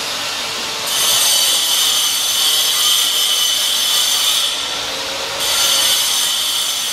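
Electric power tool grinding into white marble, with a high hissing whine. It runs from about a second in until about four and a half seconds, pauses briefly, then starts again.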